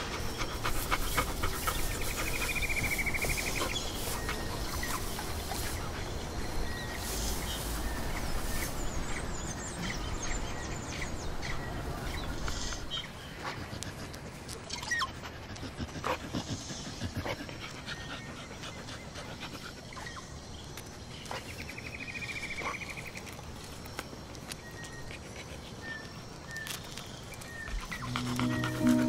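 Dogs panting and sniffing at grass, with small clicking sounds throughout. A high curving chirp sounds twice, and music comes in near the end.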